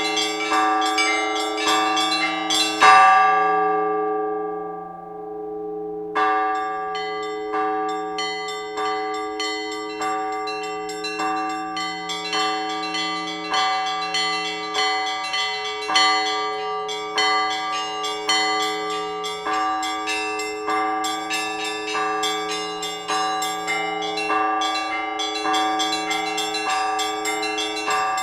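Orthodox church bells being rung: several bells struck over and over in a quick rhythm, about two strokes a second, over the long hum of a larger bell. About three seconds in, one loud stroke rings out and the strikes stop for about three seconds while the bells fade, then the rhythm starts again.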